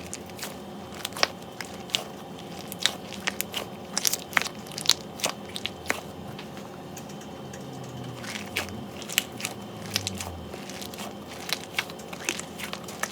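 Crunchy fruit squishy toy being squeezed by hand, giving irregular crackling crunches, many small sharp clicks in quick succession.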